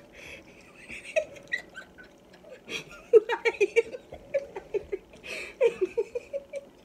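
A woman laughing in a quick run of short repeated bursts, mostly from about three seconds in until near the end.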